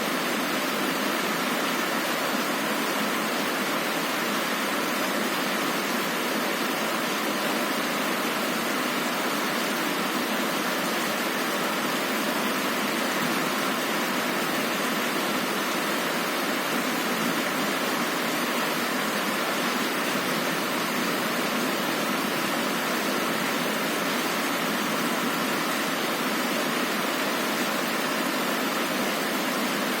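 Heavy rain falling steadily on a window, an even hiss that does not change.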